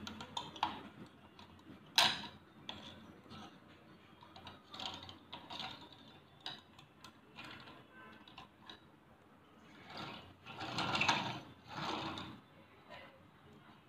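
Handling noise from a toy model tractor turned over in the hands: scattered faint clicks and knocks, one sharp click about 2 seconds in, and a longer, louder noisy stretch near the end as it is moved about.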